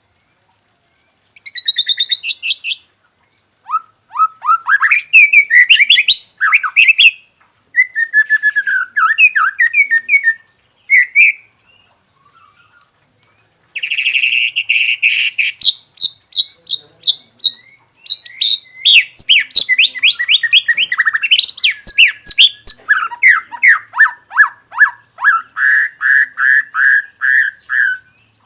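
White-rumped shama singing a varied song packed with mimicked phrases: bursts of whistles and trills between short pauses, a harsh buzzing phrase about halfway through, then a long run of quick repeated notes to the end.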